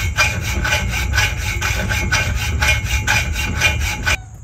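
Hacksaw cutting through rigid metal conduit in quick, even back-and-forth strokes. The sawing cuts off suddenly near the end.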